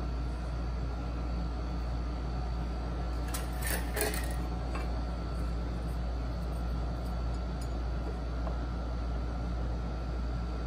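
Steady low background hum, with a brief clatter of knocks and scrapes from hand work on a wooden dovetail joint about three and a half seconds in, followed by a few faint light ticks.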